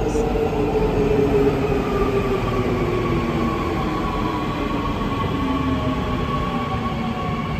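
Electric subway train pulling into the platform, its motor whine gliding slowly down in pitch as it brakes, over a steady rumble of wheels on rail.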